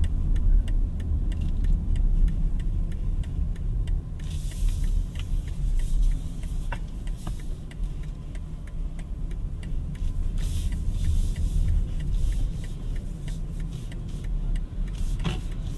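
Road and tyre rumble inside the cabin of a moving BMW iX3 electric crossover: a steady low rumble with no engine note. Twice, about four seconds in and again about ten seconds in, a rush of higher hiss swells and fades.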